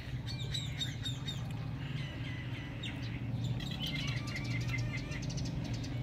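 Cockatiels chirping: strings of short, quick chirps with a brief warbling phrase in the middle, over a steady low hum.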